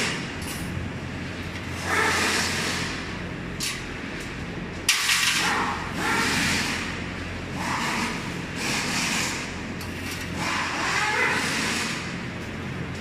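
Wire-mesh shelf panel rattling and scraping against a steel rack frame as it is fitted, in repeated noisy bursts with a few sharp clicks and brief ringing tones, over a steady low hum.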